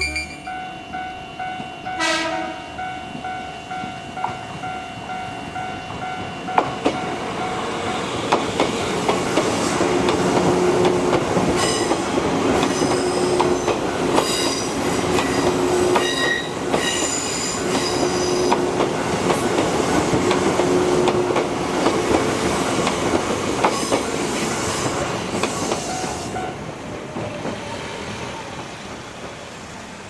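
A Japanese level crossing's warning bell rings. From about seven seconds in, an Izukyu electric passenger train rumbles across the crossing, its wheels clicking over the rail joints, and the sound fades away near the end.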